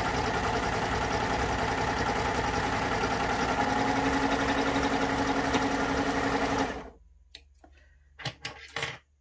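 Baby Lock Euphoria coverstitch machine sewing at a steady speed, then stopping abruptly a couple of seconds before the end. A few light clicks follow after it stops.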